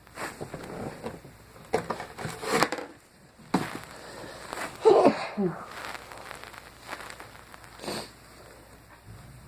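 A person sneezing several times in a row, with sharp breaths between. The loudest sneeze, about five seconds in, ends in a short falling voiced sound.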